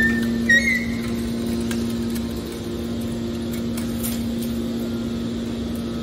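Hydraulic scrap metal baler running with a steady hum from its hydraulic power unit as the ejector cylinder pushes out compressed bales of metal shavings, with a few brief high squeaks in the first second.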